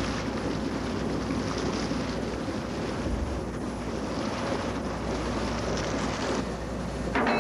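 The 630-horsepower engine of the Sea Alert, an old tugboat, running steadily under way, mixed with wind on the microphone and water washing against the hull. Near the end comes a sudden, louder burst of noise.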